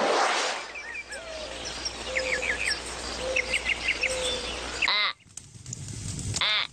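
Cartoon birdsong sound effect: groups of quick, high chirps with a few short, soft whistled notes under them. A brief voice-like call comes near the end.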